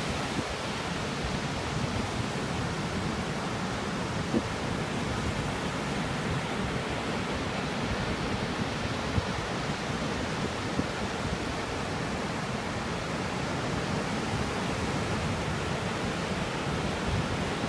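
Ocean surf on a beach, a steady even rush of breaking waves with no single wave standing out.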